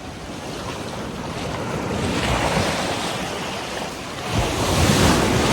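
Sea waves washing on the shore in two swells, mixed with wind buffeting the microphone.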